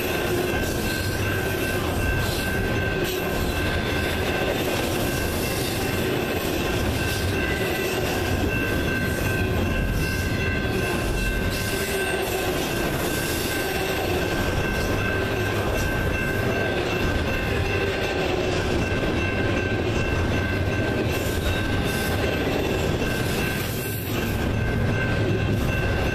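Double-stack intermodal well cars rolling past on a curve, with a continuous rumble of wheels on rail and a steady, high-pitched wheel flange squeal.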